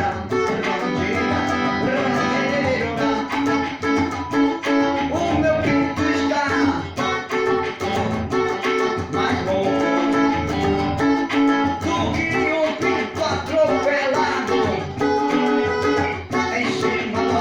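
Guitar music: plucked and strummed guitar playing a song over chords in A.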